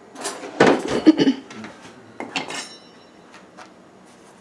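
Metal cutlery and utensils clattering as a kitchen drawer is rummaged for a knife. The clatter is busiest in the first second and a half, with a few lighter clinks afterwards.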